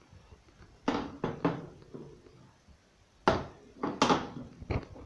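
A handful of separate knocks and thuds, about six, in two clusters: three about a second in and three more after about three seconds.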